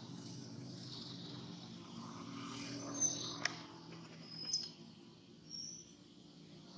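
Three short, high-pitched chirps over a faint outdoor background, with a sharp click just after the first chirp.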